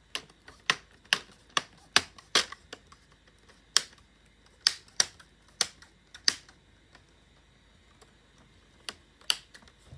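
Plastic screen bezel of an HP 17.3-inch touchscreen laptop being pressed back on, its clips snapping into place in a run of sharp, irregular clicks, with a pause of about two seconds before the last few.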